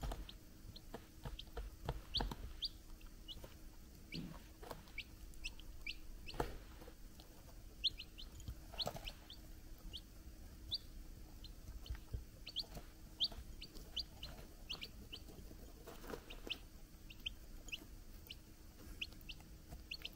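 Young chicks peeping: a steady scatter of short, high-pitched cheeps, with sharp little taps of beaks pecking at feed in ceramic bowls.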